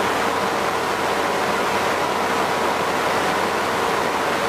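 Steady, loud hiss with a faint steady hum underneath, unchanging throughout: the background noise of the recording.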